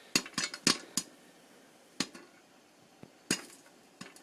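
Popcorn kernels popping in a pot covered with a plate, in sharp irregular pops: a quick cluster in the first second, then single pops about a second apart.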